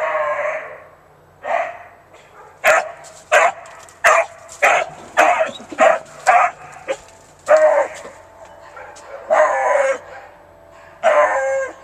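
Beagle baying while on a scent: a run of about a dozen loud barks, most short and a few drawn out into longer bays.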